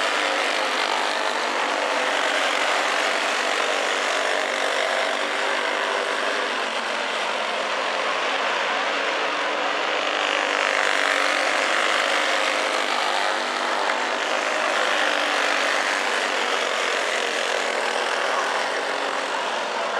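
A pack of clone-engine racing go-karts running around a dirt oval, their small single-cylinder four-stroke engines blending into one steady, continuous engine noise.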